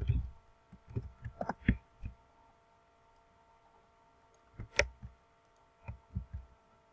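Computer keyboard keys and mouse clicks while code is typed and copied: a quick run of presses in the first two seconds, a single sharper click near five seconds, and a few more about a second later, over a faint steady electrical hum.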